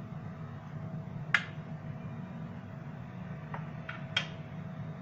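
A metal fork clicking against a metal baking tray a few times as it is pressed along logs of fekkas dough to mark them, the sharpest click about a second in and a small cluster near the end, over a steady low hum.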